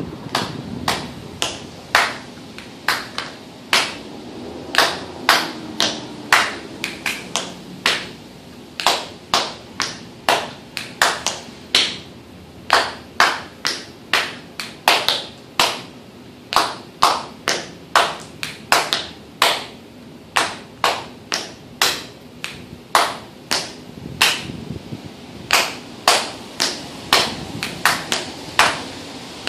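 Hand claps marking the offbeat (contratiempo) of a Cuban son clave rhythm, a sharp clap about twice a second in a steady, repeating pattern.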